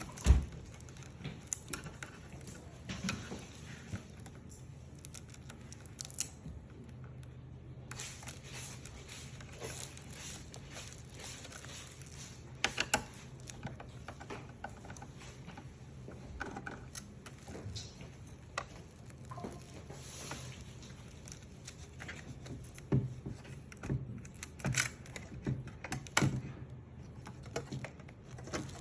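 Scattered light clicks, taps and small knocks of hands and tools working on a computer during an SSD upgrade, with a sharp knock right at the start and a busier run of taps near the end, over a faint low steady hum.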